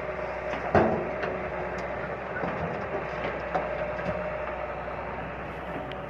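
Hyundai Robex crawler excavator's diesel engine running steadily while it dumps soil into a truck. A sharp knock comes about a second in, with a few lighter knocks later.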